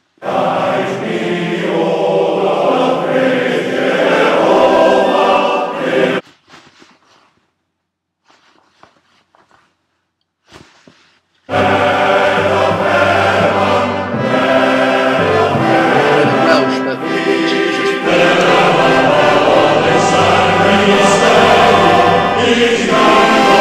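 Welsh male voice choir singing. The singing breaks off about six seconds in, leaving only a few faint brief sounds, and comes back in about five seconds later.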